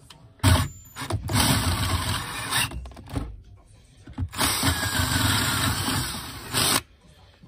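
Cordless drill with a twist bit drilling holes for a shifter mount into the car's floor: two short blips of the trigger, then two longer runs of the drill cutting, the second the longer.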